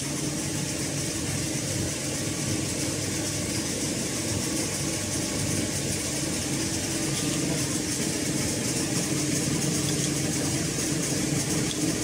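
Steady, even hum of running baler machinery, with a low drone and a high hiss that do not change.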